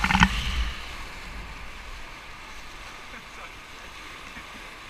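Whitewater rapids rushing around a raft, a steady hiss of churning water. A brief loud burst at the very start, with a low rumble of wind or splash hitting the microphone.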